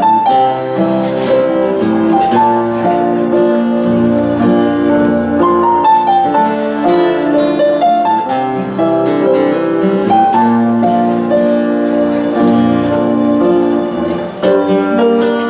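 Instrumental music: a keyboard melody of held notes over chords, with no singing.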